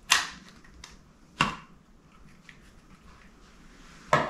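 Sharp plastic clicks and knocks from a portable spot carpet cleaner's hose and nozzle attachment being handled while the machine is switched off, as the smaller nozzle is swapped on. Two loud knocks come about a second and a half apart, then a third near the end, with faint ticks between.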